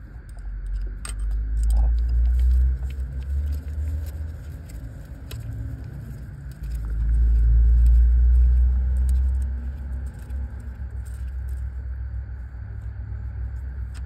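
Low rumble that swells loudly twice, with scattered light clicks of a screwdriver turning small T15 Torx screws on a fuel-injector harness bracket.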